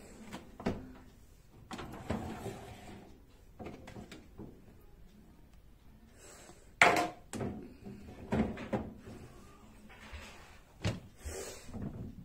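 Knocks and short clatters of a dishwasher's door and racks being handled, scattered through the stretch, the loudest about seven seconds in.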